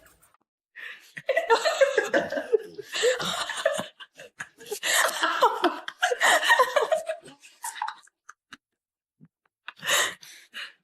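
A person laughing hard in several long fits with breaths between them, and a shorter burst of laughter near the end.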